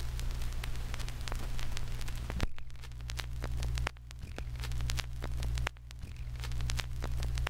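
Vinyl LP surface noise on a turntable, with the stylus running through the silent run-out groove after the last track: a steady low hum and hiss with scattered crackles and clicks.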